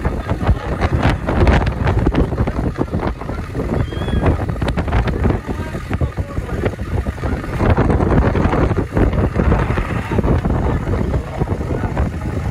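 Engine of a 4x4 pickup trail wrecker running as it crawls up a steep rock ledge, under crowd chatter and wind buffeting the microphone.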